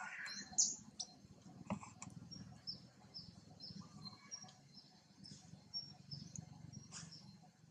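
A small bird chirping: a series of short, high, downward-sliding notes, about two a second, over a low steady outdoor background, with a few sharp clicks.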